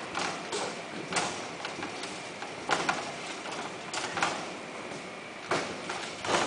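Irregular knocks and scrabbling as kittens tumble and wrestle in a wire cage with a plastic tray, about a knock every half second to second.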